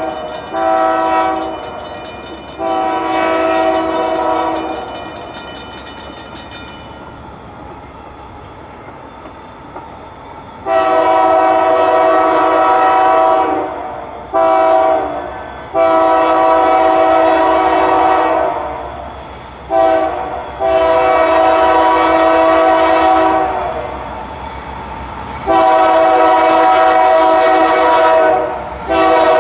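Norfolk Southern freight locomotive's air horn sounding a chord of several notes. It gives two blasts early, then a series of long blasts broken by a couple of short ones as it approaches the grade crossings. A bell rings rapidly over the first seven seconds or so, then stops.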